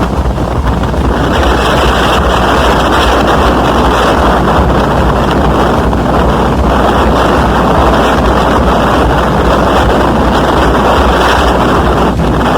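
Hurricane-force wind buffeting the microphone: a loud, steady rushing with a heavy low rumble.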